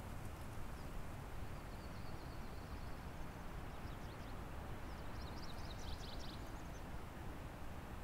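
Steady rushing of a river in the background, with small birds calling faintly: a thin high trill about two seconds in and a quick run of high chirps around six seconds.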